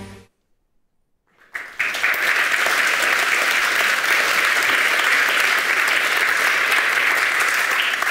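Audience applauding for about six seconds. It begins about a second and a half in, after the end of the film music and a short silence.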